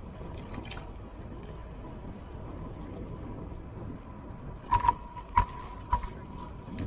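Steady low road and wind rumble of a moving bicycle ride, with a faint steady high tone, then four or five sharp knocks in the last two seconds, like the bike and mount rattling over bumps.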